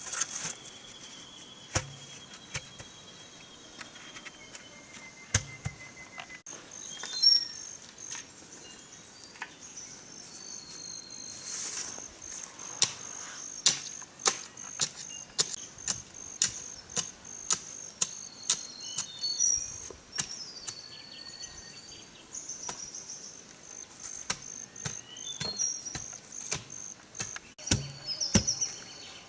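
Sharp knocks of wood against bamboo as bamboo posts are pounded into the ground, coming about once a second through the second half. A steady high insect buzz runs underneath, with a few whistled bird calls.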